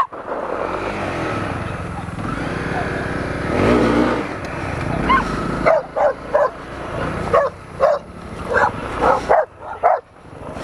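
Dogs barking at a passing dirt bike: a quick run of short, sharp barks in the second half, over the steady running of the motorcycle's engine, which swells briefly about four seconds in.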